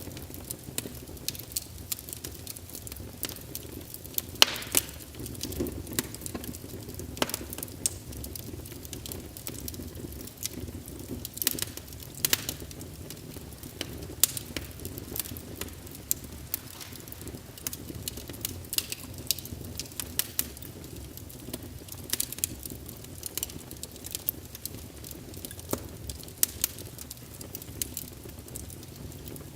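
Wood fire in a fireplace crackling: irregular sharp pops and snaps, a few of them louder, over a low steady sound of the burning.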